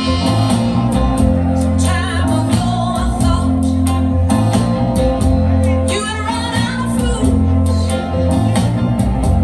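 A song playing: a sung vocal over a steady bass line and regular drum beats.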